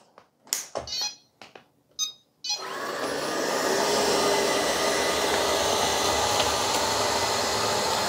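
ILIFE V3s Pro robot vacuum being switched on: a few short clicks and a brief beep, then about two and a half seconds in its suction motor and brushes start, rising for a moment and then running steadily.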